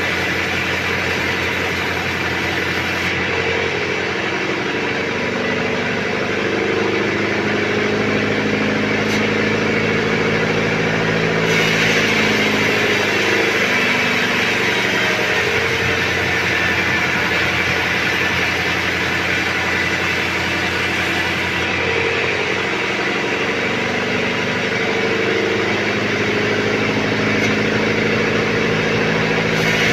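Engine-driven band sawmill running continuously while sawing timber. The engine's pitch drifts up and down with the load, and a brighter, higher sawing noise joins in for about ten seconds in the middle.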